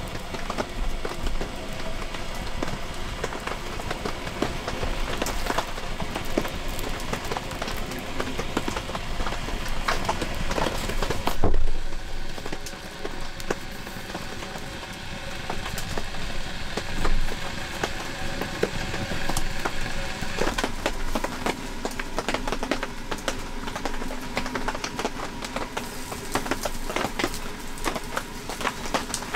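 Wood fire crackling and popping inside a small metal camp stove, with a steady run of irregular small snaps and one louder knock near the middle.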